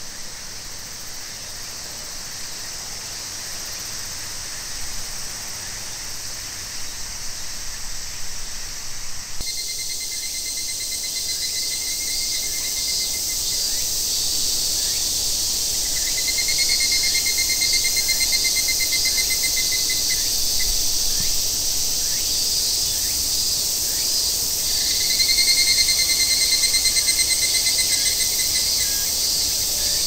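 Summer evening cicada chorus: a steady high-pitched insect drone, joined from about a third of the way in by higurashi cicadas (Tanna japonensis) calling in rapid pulsing 'kana-kana' phrases of a few seconds each, three times.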